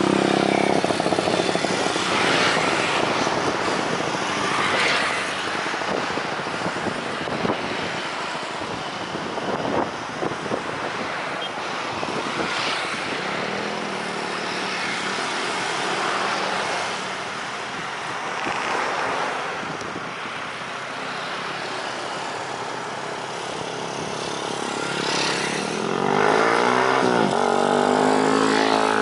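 Road traffic, motorbikes and cars, passing one after another with steady tyre and engine noise that swells as each one goes by. Near the end a louder engine passes close, its pitch sliding up and down.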